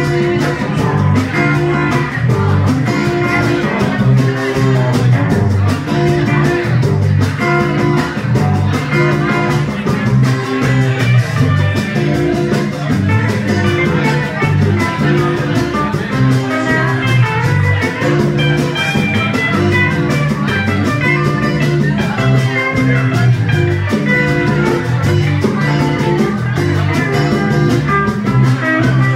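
Live band playing an instrumental passage: guitar over a repeating bass line, with a drum kit keeping a steady beat.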